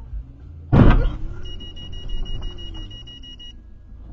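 Vehicle collision: one loud crash about a second in, then a steady high-pitched electronic beep for about two seconds over the road rumble.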